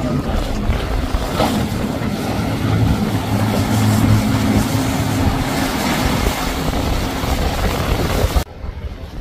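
Outboard engines of center-console boats running at speed, a steady drone with water spray and hull noise over it. Near the end the engine sound cuts off suddenly, leaving quieter wind and water.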